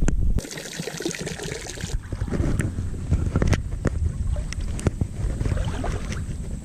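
Wind buffeting the microphone, with scattered light knocks and clicks of gear against a plastic kayak hull. A brief hiss of moving water or rustle starts about half a second in and lasts about a second and a half.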